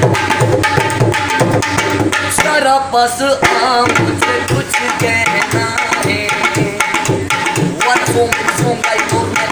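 Dholak, a two-headed barrel hand drum, played by hand in a fast, steady rhythm, with deep bass strokes mixed with sharper treble slaps.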